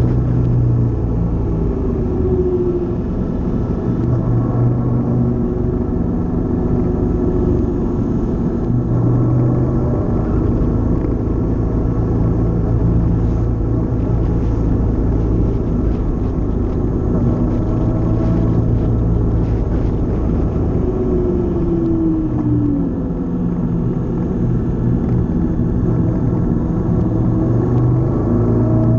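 Honda CTX700 motorcycle's 670 cc parallel-twin engine running steadily under way, its pitch sliding down about two seconds in and again around twenty-one seconds.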